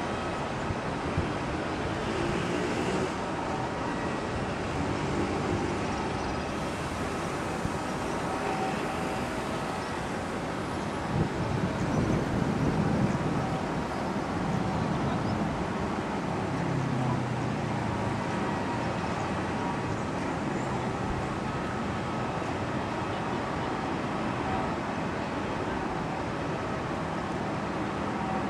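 Steady outdoor traffic and engine noise, swelling louder for a couple of seconds about halfway through.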